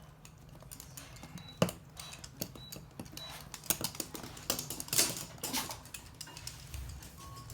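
Toy poodle's claws clicking and pattering on a hard floor as it moves around, with a sharp knock about a second and a half in and a louder flurry of clicks about five seconds in.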